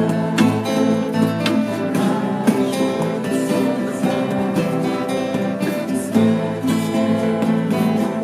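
A band rehearsing a song, led by a strummed acoustic guitar playing steady chords.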